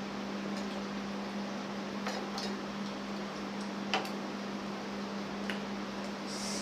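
A few small clicks of a plate and food being handled while eating, the sharpest about four seconds in, over a steady background hum and hiss. A brief hiss comes right at the end.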